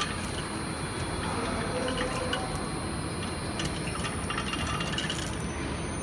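Fire of diesel-soaked rags and biomass pellets burning in a furnace's open combustion chamber: a steady rushing noise with scattered light crackles.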